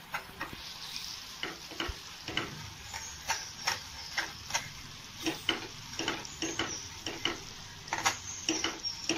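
A small metal whisk clicking and scraping against a pan a couple of times a second, stirring caramelized sugar and water as it simmers into caramel syrup, with a faint sizzling hiss underneath.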